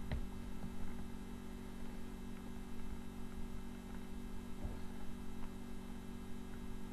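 Steady electrical mains hum, with a couple of faint clicks of paintball-gun parts being handled.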